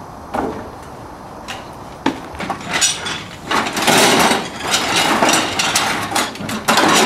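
Clattering, knocking and rummaging of assorted old metal and wooden hardware being handled and sorted. It starts with scattered knocks about two seconds in and becomes a dense, loud clatter through the second half.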